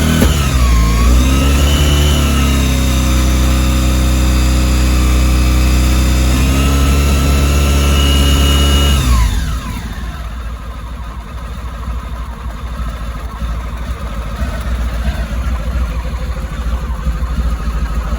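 Car engine running with its revs raised: blipped up and down about a second in, then held steady at a fast idle. About nine seconds in the revs fall away and it settles to a quieter, lower idle. The engine is being run with its rocker cover freshly refitted, to check for leaks.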